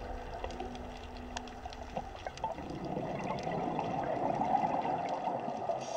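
Underwater sound of a scuba diver's exhaled regulator bubbles: scattered sharp clicks, then from about two and a half seconds in a rush of bubbling that swells and then eases off.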